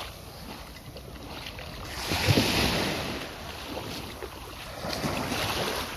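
Small waves washing up a sandy shore on a calm sea, swelling twice, loudest about two and a half seconds in and again near the end. Wind buffets the microphone.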